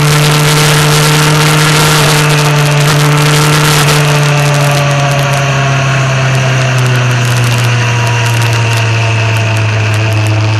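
Motorcycle engine running at road speed over wind rush on the microphone. From about four seconds in the wind noise eases and the engine note slowly drops, as the bike rolls off toward a bend.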